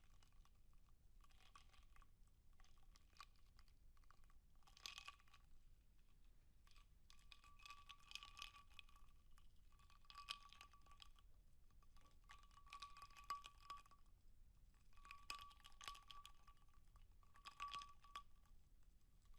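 Faint ice cubes clinking against the inside of a glass as it is swirled, in about eight separate bursts of quick clicks, each with the glass ringing briefly.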